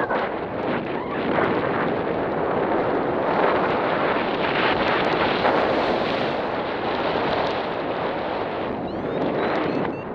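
Wind rushing over the microphone of a paraglider pilot in flight: steady, loud wind noise that eases slightly near the end.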